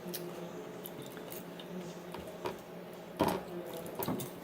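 Close-up eating sounds of fried chicken taquitos being chewed, with a few soft clicks and a louder clatter about three seconds in, over a faint steady hum.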